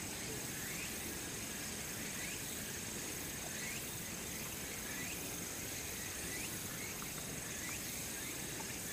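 Steady outdoor insect chorus: a continuous high-pitched chirring, with short rising chirps repeating about once a second.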